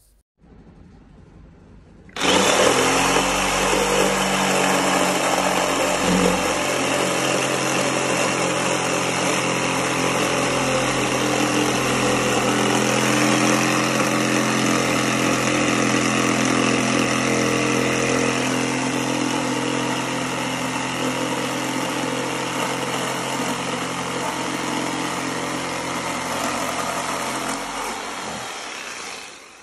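Electric jigsaw running steadily as its blade cuts through a plywood panel along a marked line. It starts suddenly about two seconds in and winds down near the end.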